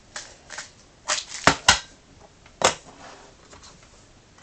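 Metal pellet gun tins clacking against each other and the table as they are handled and stacked: four sharp clacks between about one and three seconds in, with lighter rattling around them.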